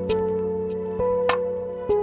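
Soft instrumental background music, its sustained notes changing about once a second, with light ticking percussion.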